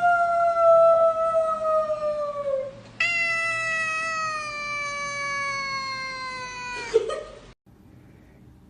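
A domestic cat giving two long, drawn-out yowls, each slowly falling in pitch. The second yowl ends about seven and a half seconds in.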